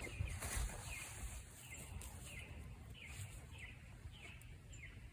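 A bird calling faintly and repeatedly, a short falling chirp about every two-thirds of a second, over faint outdoor background noise.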